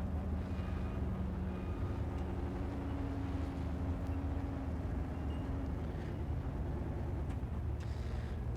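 Engine of a modified off-road 4x4 running at low revs as it crawls an obstacle, a steady low rumble whose pitch shifts slightly.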